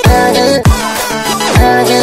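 Electronic music: deep bass hits that slide down in pitch, about one a second, under held chords.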